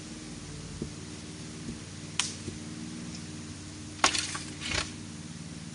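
A steady low hum, with a sharp knock about two seconds in and a quick run of knocks about four seconds in as a person leaps off a slatted wooden structure.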